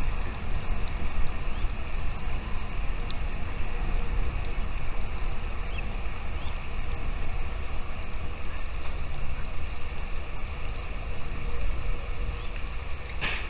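Steady low rumbling background noise, like wind on an outdoor microphone, with a few faint short high chirps and one brief louder chirp near the end.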